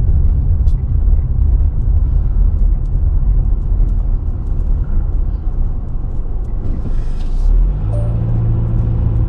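Low, steady rumble of a car's engine and tyres heard from inside the cabin while driving slowly down a street. About eight seconds in, a steady engine hum sets in.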